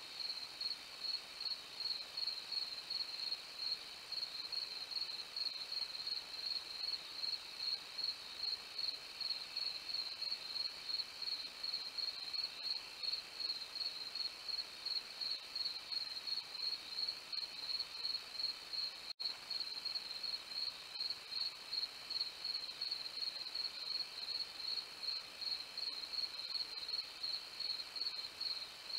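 Crickets chirping steadily at night: a high, evenly pulsing chirp that keeps on without a break, with a fainter lower insect chorus beneath it. The sound cuts out for an instant about two-thirds of the way through.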